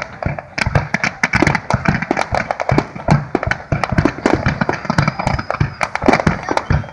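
Aerial fireworks going off in a rapid barrage: many sharp bangs and crackles overlapping, with no pause between them.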